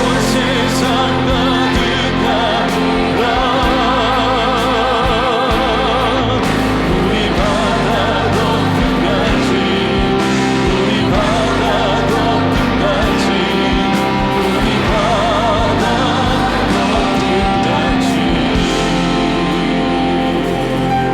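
Live worship band music: keyboards, guitar, bass and drums playing a slow Christian worship song while vocalists sing long held notes that waver with vibrato.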